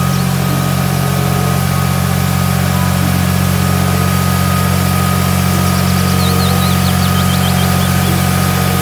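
Diesel engine of a red Massey Ferguson narrow cab tractor running steadily at a constant speed, with a strong low engine note under an even mechanical noise.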